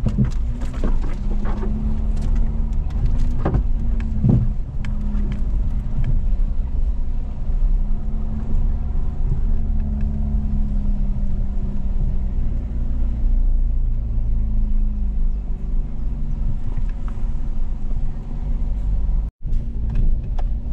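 Off-road 4x4's engine running steadily at a low pitch under a heavy rumble, with a few sharp knocks in the first five seconds. The sound breaks off for a moment near the end.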